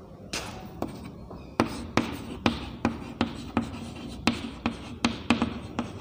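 Chalk writing on a chalkboard: a run of sharp taps and short scratches, about two or three a second, as words are written out by hand.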